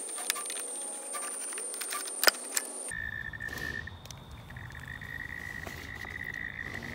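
Socket wrench ratcheting in quick, irregular clicks while undoing a bolt on a lawn mower's plastic engine cover, with one sharper click about two seconds in. After a cut about three seconds in, a steady high tone over a low rumble.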